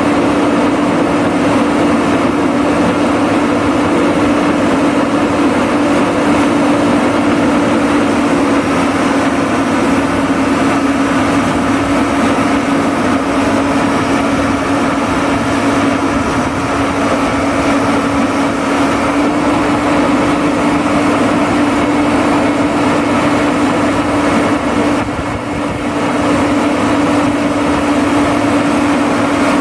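The diesel engine of a Gomaco GT-6300 slipform machine running steadily at a constant speed, with a strong steady hum, and briefly a little quieter about 25 seconds in.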